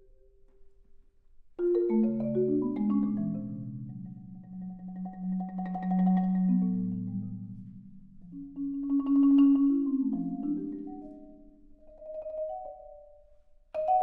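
Solo marimba played with mallets: a note dies away, then a sudden loud spread of notes about one and a half seconds in opens into sustained rolled low chords that swell and fade twice, dropping almost to silence near the end before a new loud entry.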